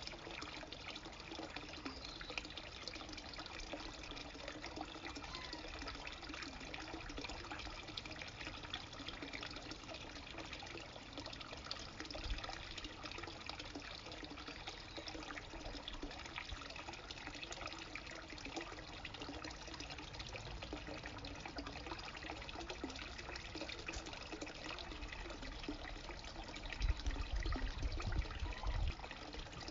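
A thin stream of water trickling steadily from a pipe into a garden pond. A low rumble rises for a couple of seconds near the end.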